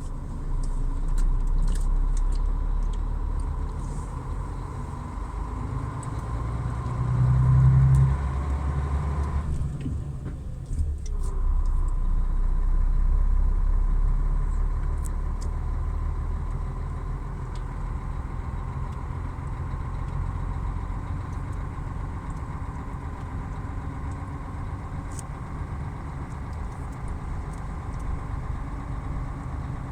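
Truck diesel engine running steadily, swelling louder briefly about seven to eight seconds in, then settling back to an even hum.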